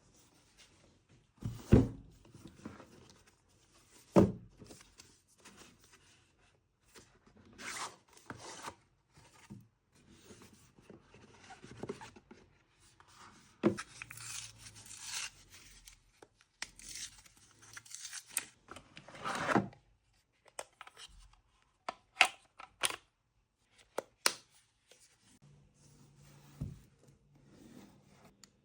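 Unboxing of a new mechanical keyboard: packaging being handled and torn open, with rustling and tearing in irregular stretches and scattered sharp knocks, the loudest a few seconds in.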